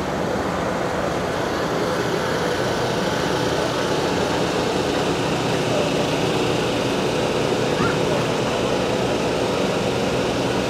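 Heavy truck engine idling steadily with an even, constant hum.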